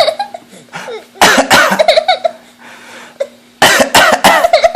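A man coughing: one loud cough about a second in, then a run of several quick coughs near the end. Each is followed by a small child's short, high laughter.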